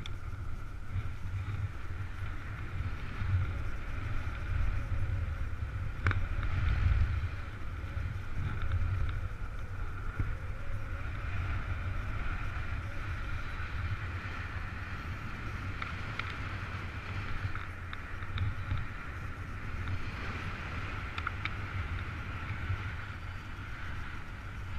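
Airflow of paraglider flight rushing over the camera microphone: a gusting low rumble with a steady higher hiss, and one brief knock about six seconds in.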